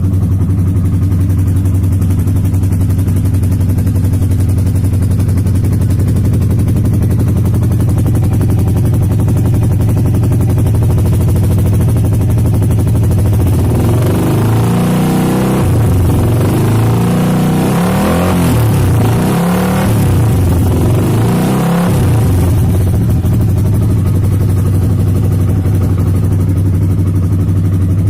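Yamaha YZF-R15 V2's single-cylinder engine idling through an aftermarket Nob1 Titan exhaust, said to sound like a twin. About halfway through it is blipped four or so times, each rev rising and falling quickly, then settles back to idle.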